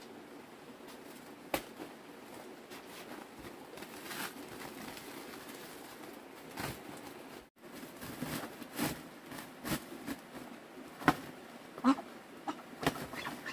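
Woven plastic feed sack rustling and crinkling as it is pulled out and handled, with scattered light scuffs and knocks at uneven intervals.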